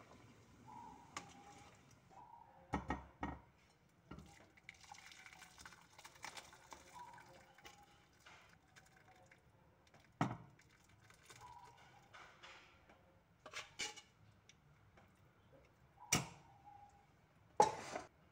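A ladle knocking and clinking against the pot and a glass serving bowl while cassava-leaf curry (gulai daun singkong) is stirred and served, with faint liquid sloshing. There are a few sharp knocks, two close together about three seconds in and the loudest near the end.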